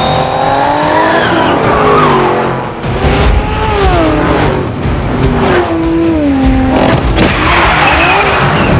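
Car engines revving hard with tyres squealing and skidding on the road, the pitch sliding up and down repeatedly.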